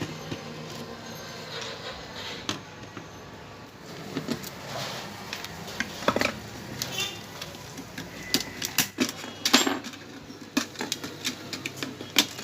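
Hand tools and small metal parts clicking and clattering as an LED TV's motherboard screws are taken out and the board is handled: a run of sharp, irregular clicks and light metallic knocks.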